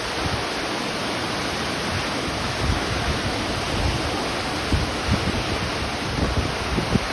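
Steady rush of falling water from a waterfall, with wind gusting on the microphone now and then.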